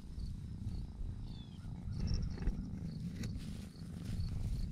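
A steady low rumbling noise, with an insect chirping in a regular rhythm of about three chirps a second.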